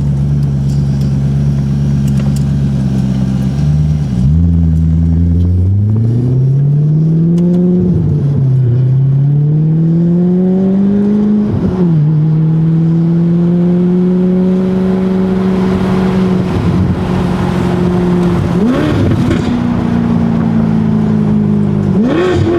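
Maserati Quattroporte engine pulling under acceleration. Its pitch climbs and drops sharply about four seconds in, again at eight and twelve seconds as the gearbox upshifts, then it runs at a steadier, slowly rising speed, with two brief dips near the end.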